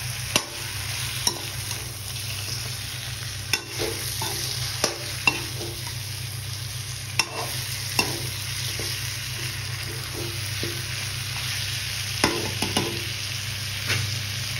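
Pork pieces sizzling gently in masala in a wok over low heat while a perforated steel spatula stirs them, scraping and clacking against the pan every second or two. A steady low hum runs underneath.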